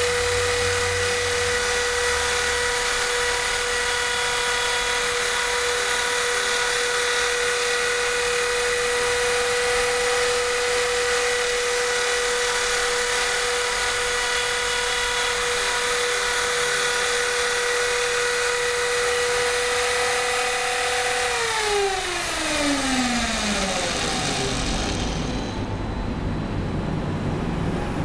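Mini CNC router's small spindle motor running at a steady high-pitched whine. About 21 seconds in it switches off and the whine falls in pitch as the spindle spins down, leaving a low rumbling noise.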